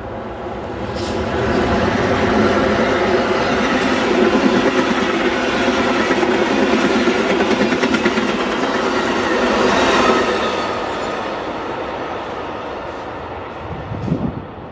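Amtrak passenger train passing close by: the diesel locomotive's engine grows louder over the first couple of seconds, then the cars roll past on the rails. The sound peaks about ten seconds in and fades as the train moves away, with a short low rumble near the end.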